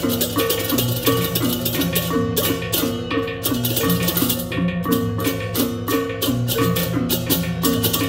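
Balinese baleganjur gamelan playing: rapid ceng-ceng hand cymbal strokes over a repeating pitched figure on the reyong gong-chimes, with kendang drums and low gongs sounding underneath.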